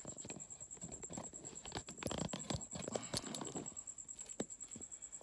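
Handling noise close to the microphone: irregular clicks, taps and rustles as a phone is fitted onto a stand, busiest in the middle. A steady high-pitched whine runs underneath.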